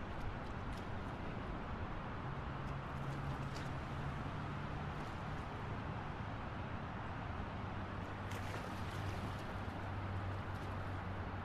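Busy city street traffic: a steady wash of passing cars with the low hum of their engines.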